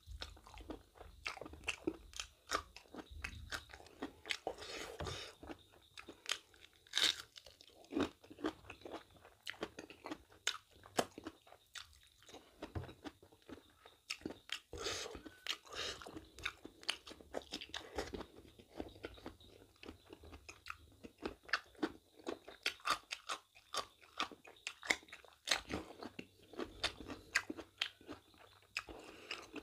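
A person chewing a mouthful of mutton innards curry and white rice close to the microphone: irregular wet smacks, crunches and clicks of the mouth, many per second.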